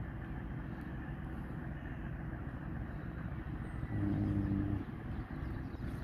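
An engine running with a steady low rumble. About four seconds in, a louder steady low hum joins it for just under a second.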